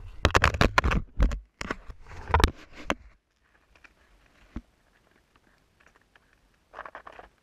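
Close knocks and rustling on the camera's microphone over a low wind-like rumble for about three seconds, then mostly quiet with faint scattered ticks and a short rustle near the end.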